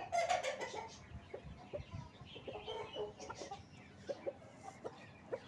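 Aseel chickens clucking: a loud call right at the start, then scattered short clucks and softer calls.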